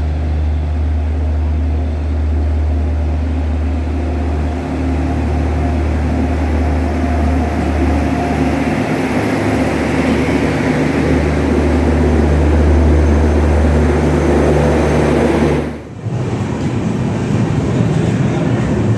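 Train at the station platform: a steady low hum with a heavy rumble over it. It breaks off abruptly about 16 seconds in and a rougher rumble carries on.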